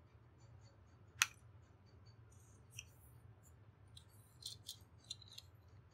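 A few small clicks over a faint low hum: one sharp click about a second in, then several lighter clicks near the end.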